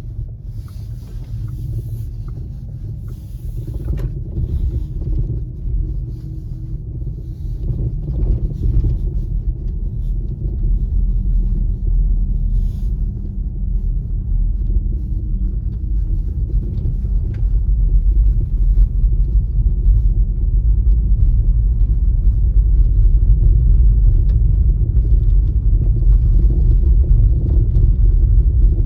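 Skoda Enyaq electric SUV on the move: a steady low road-and-tyre rumble that grows louder over the first half, with scattered faint ticks and knocks. This is the noise from the front of the car that the owner complains of and Skoda service says it cannot hear.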